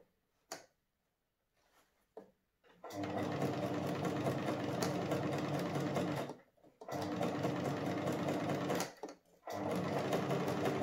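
Electric domestic sewing machine stitching a hem: after a near-silent start with a couple of small clicks, it runs in three stretches of a few seconds each, stopping briefly twice as the fabric is guided.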